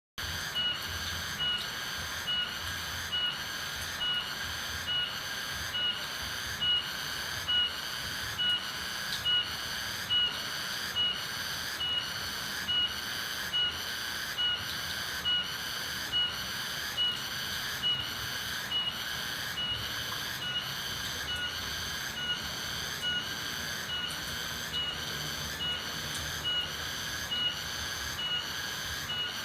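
Rural outdoor ambience: a high call repeating about once a second over a steady high hiss.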